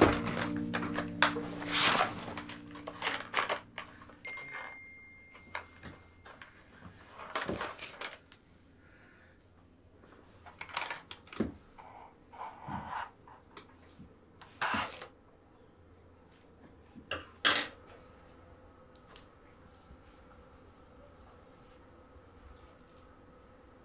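Soft score music fading out over the first few seconds, then scattered light knocks, clinks and rustles of objects being handled, with long quiet stretches between them. Over the last few seconds only a faint steady hum of room tone remains.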